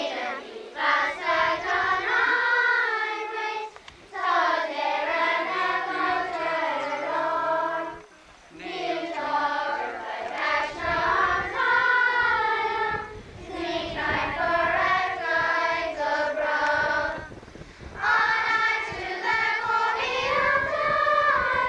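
A children's school choir singing a traditional Tipperary song, in phrases of about four seconds with short breath pauses between them.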